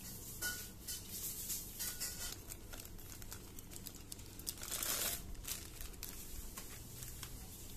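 Clear plastic wrapping crinkling and rustling as the wrapped wooden wind chime is handled and slid out of its bag. The crinkling is loudest about five seconds in.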